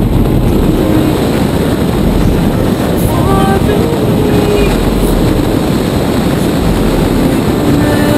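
Rock music: a dense, loud band sound under a few long held sung notes that step in pitch.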